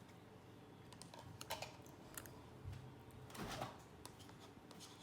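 Faint clicks and taps of a plastic screw cap being twisted shut on a bottle of orange juice, a few scattered ticks with a slightly louder knock near the middle.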